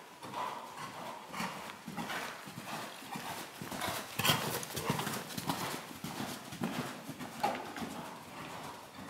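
Hoofbeats of a horse trotting on the soft sand footing of an indoor arena: a steady rhythm of dull thuds that is loudest about four seconds in, as the horse passes close, and fades as it moves away.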